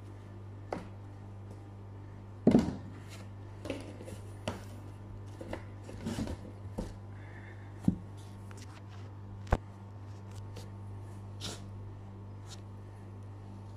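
Scattered knocks and clinks of bowls, a glass and utensils being handled on a kitchen counter, the loudest about two and a half seconds in, over a steady low hum.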